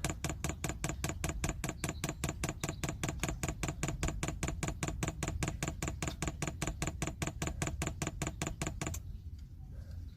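Diesel heater fuel pump clicking rapidly and evenly, about five clicks a second, as it draws fuel through the fuel line; the clicking stops abruptly about nine seconds in.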